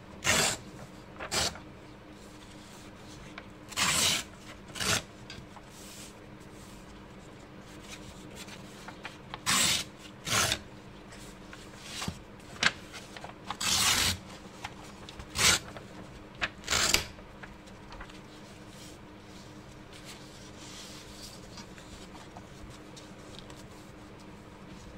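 Watercolor paper being torn along the edge of a steel ruler: about ten short rips, each under a second, at irregular spacing, stopping about seventeen seconds in.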